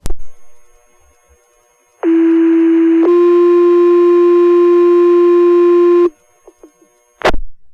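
Fire department paging tones over a two-way radio channel: a two-tone sequential alert, a first tone of about a second stepping straight into a second steady tone held about three seconds. A radio key-up burst comes just before the tones and another near the end.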